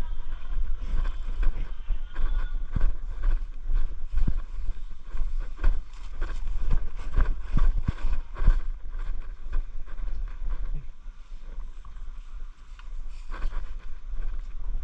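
Wind rumbling on the microphone, with irregular knocks and rustling throughout, busiest in the middle.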